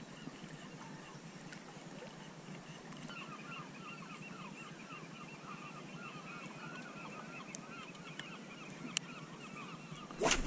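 A flock of birds calling faintly over and over, many short calls several a second from a few seconds in, over a low wash of water. A sharp knock near the end.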